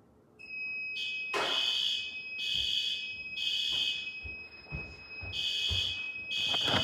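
Building fire alarm sounding in evacuation mode, set off by smoke coming out of the HVAC system. Its blasts come about a second apart in groups of three with a longer pause between groups, over a steady high tone.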